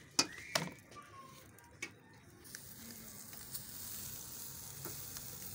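Pieces of meat sizzling on the grate of a charcoal barbecue grill over glowing coals, a steady hiss that sets in about halfway through. A few sharp clicks come near the start.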